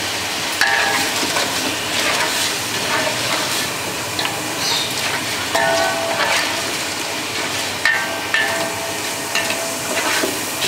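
Chicken pieces sizzling in hot oil in a large aluminium pot, stirred with a spoon that scrapes and knocks against the pot now and then over a steady frying hiss.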